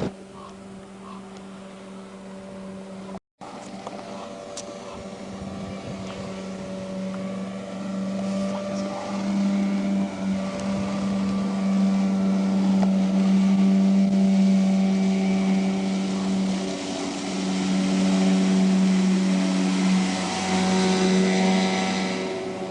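Motorboat engine running steadily and growing louder as the boat approaches fast, with a brief cut-out in the sound a few seconds in.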